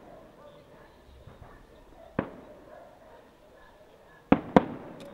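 Aerial firework shells bursting: one bang about two seconds in, then two louder bangs in quick succession near the end, each with a short echo.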